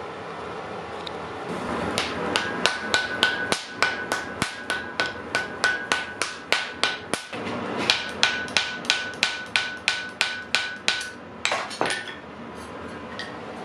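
Hand hammer striking red-hot iron on an anvil, forging an axe head: a steady run of blows, about three a second, with the anvil ringing at a high pitch. The blows pause briefly midway and stop about twelve seconds in.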